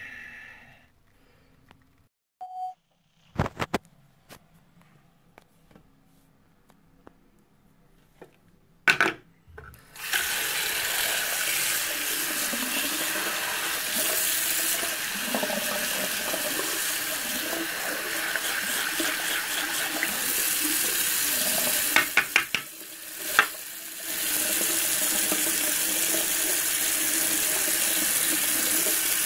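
A few sharp clicks and knocks, then from about ten seconds in a tap runs steadily into a sink basin, splashing over the drain. The flow dips briefly with a few clicks a little after twenty seconds, then runs on.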